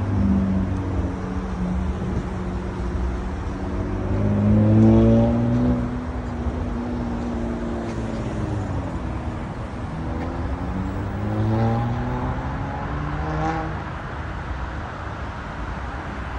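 Road traffic on a busy highway: a steady low rumble with vehicle engines rising and falling in pitch as they pass below. The loudest engine climbs about five seconds in and then slowly drops away, and another rises near twelve seconds.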